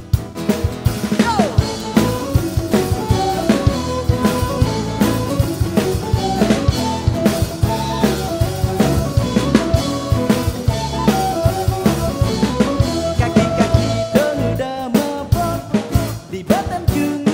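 Band music: a drum kit keeps a busy beat of bass drum, snare and rimshots under bass and melodic instruments.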